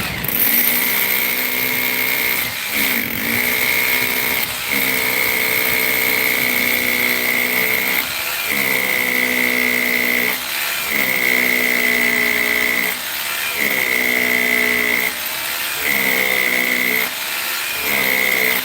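Handheld electric power tool running with a steady high whine, its motor dipping briefly about every two seconds, some eight times.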